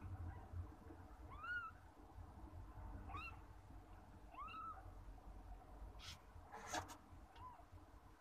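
Newborn kittens mewing: about four short, high-pitched squeaks that rise and fall, a second or so apart. A brief rustle comes a little after the middle.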